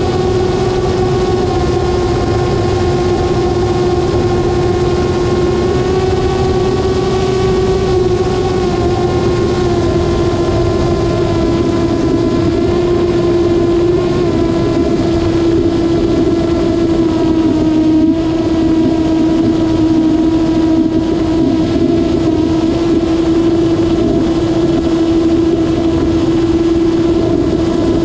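Motor and propeller of a small remote-controlled plane, heard from its onboard camera: a steady hum with a high whine above it, its pitch sagging slightly over the stretch, over the low rush of wind on the microphone.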